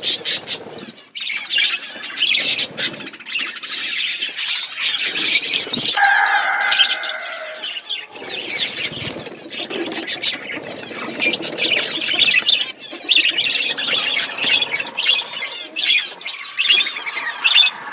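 A flock of budgerigars chattering with dense, continuous overlapping chirps and warbles, with a louder, lower held call about six seconds in.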